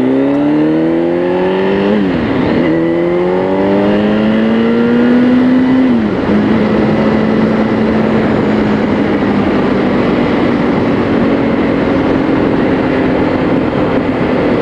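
Kawasaki ZX-10R inline-four engine accelerating through the gears: its pitch climbs, drops sharply at an upshift about two seconds in, climbs again, drops at a second upshift about six seconds in, then holds steady at cruising speed.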